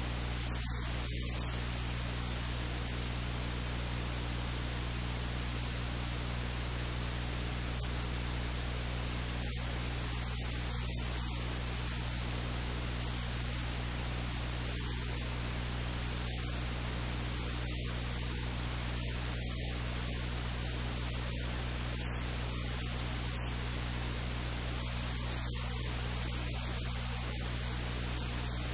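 Steady hiss with a low electrical hum underneath: the recording's noise floor, with no other sound standing out.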